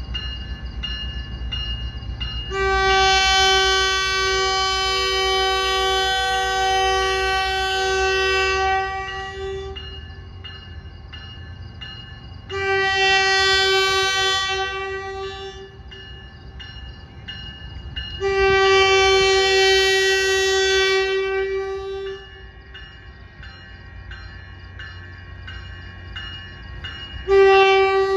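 Caltrain cab car's multi-chime horn sounding four blasts, the first long and held for about seven seconds, the last starting just before the end. The electronic bell dings steadily underneath throughout as the train departs.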